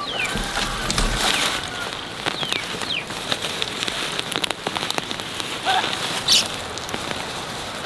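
Hands digging in loose, crumbly soil to unearth potatoes: earth rustling and crumbling with many small crackles, and a louder scrape about six seconds in.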